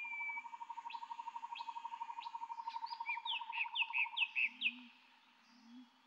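Tropical forest ambience with birdsong. A steady, rapid pulsing trill stops about four seconds in. Sharp chirps are followed by a quick run of five downward-slurred whistled notes, the loudest part, and faint low calls come near the end.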